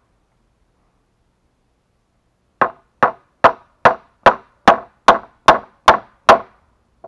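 Hammer nailing wooden planks: about ten sharp, evenly spaced strikes, roughly two and a half a second, starting between two and three seconds in.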